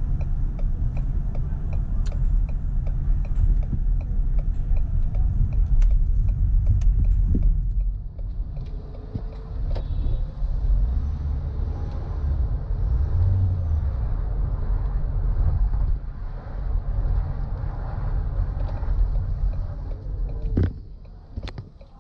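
Car driving slowly through city streets: a steady low rumble of engine and road. For the first seven or eight seconds the turn signal ticks about twice a second for a left turn, then stops. There is a sharp knock near the end.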